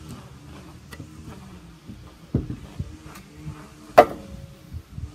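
A few knocks and bumps against the wooden concrete form boards, the loudest about four seconds in with a short ring after it, over a steady low hum.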